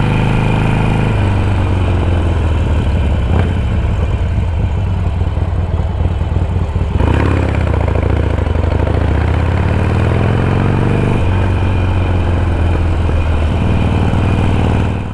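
Motorcycle engine running while under way. Its pitch drops about a second in, climbs steadily from about seven seconds as it accelerates, and falls back about eleven seconds in.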